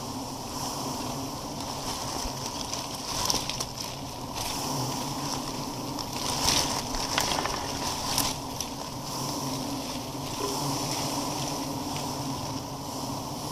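A swarm of giant honey bees buzzing steadily around their nest as it is smoked and the comb cut out, with leaves rustling and a few louder scrapes of handling near the middle.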